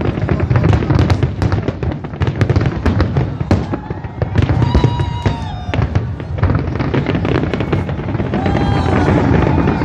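Fireworks display: a dense, rapid run of crackling bangs that thins out after about four seconds.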